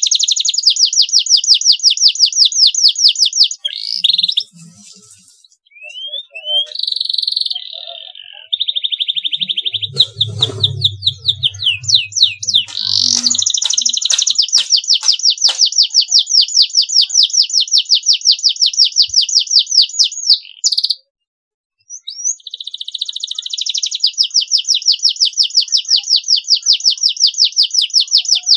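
Domestic canary singing: long, rapid, evenly repeated high trills and rolls in several phrases, broken by short pauses and one brief silence about two-thirds of the way through.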